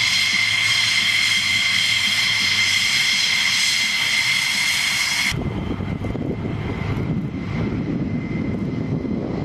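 F-16 fighter jet taxiing, its engine giving a loud steady high-pitched whine with several fixed tones. About five seconds in the sound cuts off abruptly and is replaced by a lower, rough rumble of a second jet moving along the runway.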